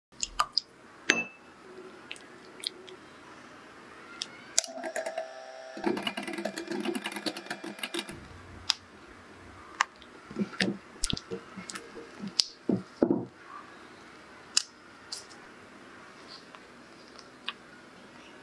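Close-up kitchen prep sounds: sharp taps and clinks of glassware, plastic tubs and utensils against bowls, with a busier stretch of clattering and scraping about five to eight seconds in.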